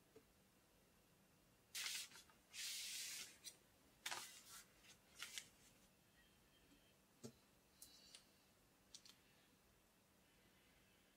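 Keyboard parts being handled during assembly on a desk: a few short rustling scrapes in the first half, then scattered light clicks and taps.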